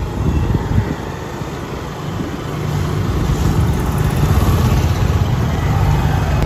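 Motor scooter engines running close by, with a low rumble that grows louder about halfway through.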